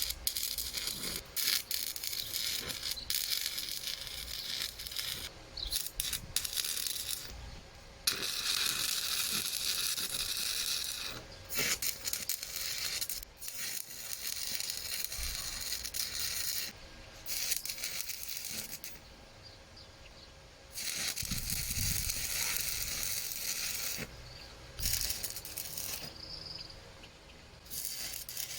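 Electric arc welding laying tack welds: a crackling, sizzling arc in about eight runs of one to seven seconds each, broken by short pauses between tacks.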